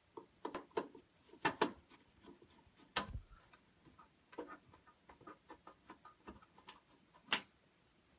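Irregular clicks and light knocks of a screwdriver and hands working at the screws and panel of a small desktop computer case, with sharper knocks about a second and a half in, at three seconds and near the end.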